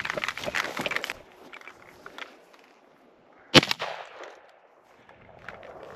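Footsteps crunching through tall dry grass for about the first second, then faint rustling. About three and a half seconds in comes a single sharp bang, the loudest sound, with a short echo.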